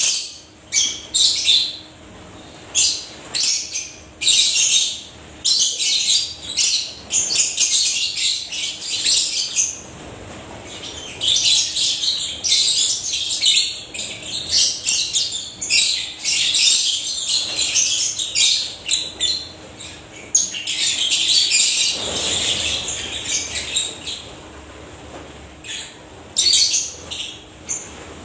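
A flock of African lovebirds chattering: many rapid, shrill, high-pitched chirps overlapping one another, thinning out over the last few seconds.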